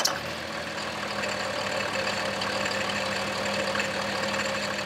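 Diesel truck engine idling steadily.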